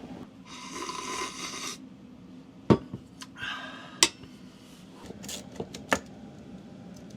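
Metal hand tools and hardware clinking and scraping: a scraping stretch in the first second or two, then a few sharp clicks and knocks, one loud click near the middle.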